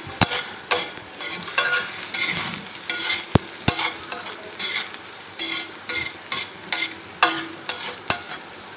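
Spatula stirring and scraping chopped onions and green chillies frying in oil on a tawa, with a steady sizzle under quick repeated strokes, about two a second. Two sharp clicks about three and a half seconds in.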